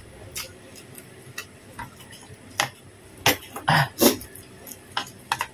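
Eating by hand: fingers scraping and picking rice off a plate, with small clicks against it, and chewing and lip-smacking mouth noises. There are a few short louder sounds between about two and a half and four seconds in.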